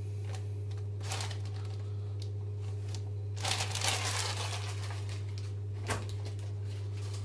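Food packaging crinkling and rustling as it is handled, loudest a little over three seconds in, then a single sharp click near six seconds, all over a steady low electrical hum.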